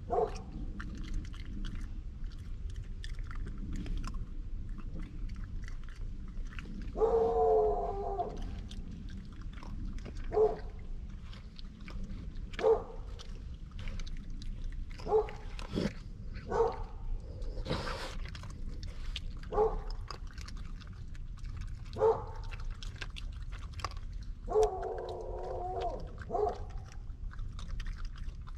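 A dog barking single barks every couple of seconds, with two longer, wavering drawn-out calls about 7 and 25 seconds in. Under it are faint crunching clicks of raccoons eating peanuts.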